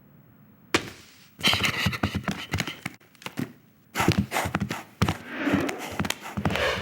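Animated-film foley of toys moving about: a sudden knock after a moment of quiet, then quick flurries of thumps, taps and scuffles in several bursts.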